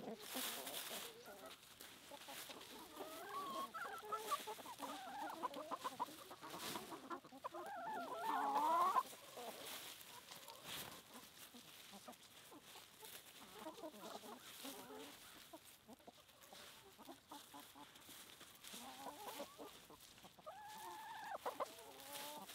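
A flock of chickens clucking, with short calls overlapping now and then. The loudest burst comes about eight seconds in.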